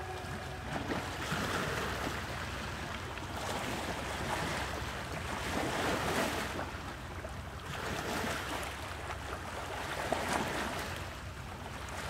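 Rushing water: a steady wash of noise that swells and eases every couple of seconds.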